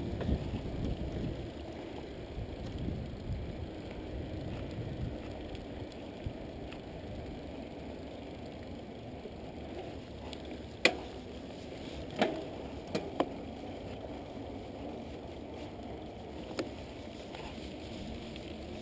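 Mountain bike rolling along a paved road: steady tyre and wind noise, with a handful of sharp knocks and rattles from the middle on, the loudest two about eleven and twelve seconds in, as the bike jolts over rough patches in the road.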